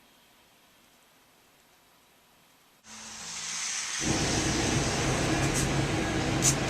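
Dead silence for about three seconds, then steady road and engine noise inside a moving car, which comes in faintly and grows suddenly louder about a second later.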